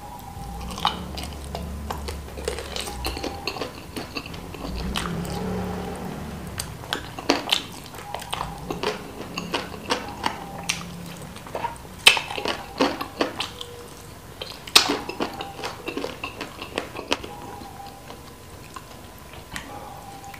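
Close-up chewing and biting of chicken feet in chili sauce: wet smacking with many sharp crunchy clicks. The loudest bites come about 12 and 15 seconds in.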